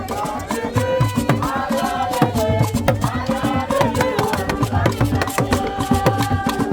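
Afrobeat-style music with a steady beat of shakers, wood-block and drums under sung or melodic lines.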